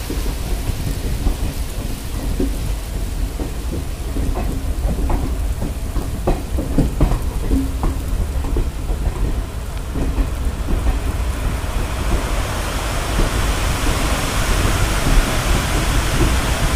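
Heavy rain with a deep rumble of wind on the microphone, taken at the open door of a slowly moving train. Short scattered knocks come through in the middle, and from about eleven seconds on a hiss grows louder and brighter.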